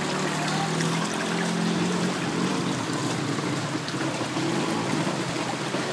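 Floodwater sloshing and rushing around a vehicle wading through a flooded street, with rain falling on the water: a steady wash of water noise. A faint low hum sits under it for about the first two seconds.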